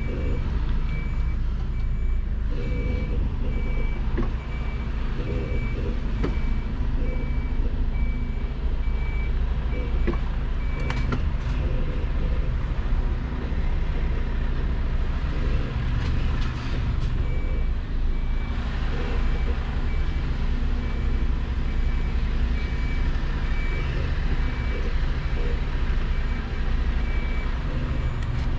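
Truck's diesel engine running steadily under a reversing alarm: a steady run of short high beeps that stops for several seconds in the middle, then starts again and stops again near the end, as the tractor unit reverses to couple to the trailer.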